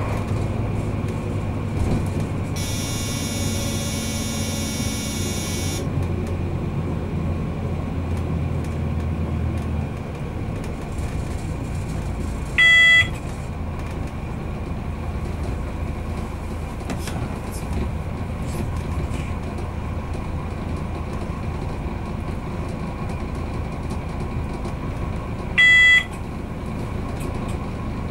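Train running slowly, heard from inside the driver's cab: a steady running rumble that drops a little about ten seconds in, with a high squeal for about three seconds near the start. Twice, about 13 seconds apart, a short, loud electronic beep sounds in the cab.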